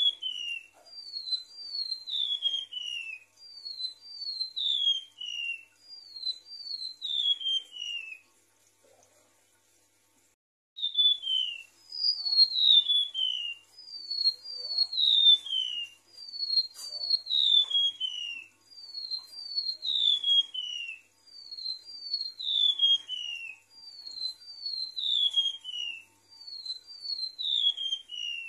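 Golden-bellied gerygone (remetuk laut) singing. Its song is high, thin whistles that slide down in pitch, given in short phrases of two to four notes about every two seconds. There is a pause of a couple of seconds about eight seconds in.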